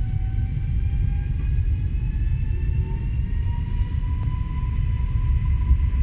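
Newag Impuls 35WE electric multiple unit heard from inside the carriage, its traction motors whining in a tone that rises steadily in pitch as the train picks up speed, over a loud low rumble of the wheels on the rails.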